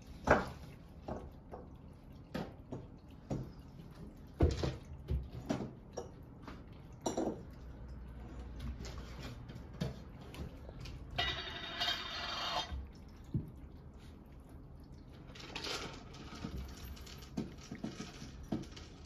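Scattered light clinks and knocks of dishes being handled while cat food is readied. About eleven seconds in there is a rustling, pouring-like stretch lasting a second and a half.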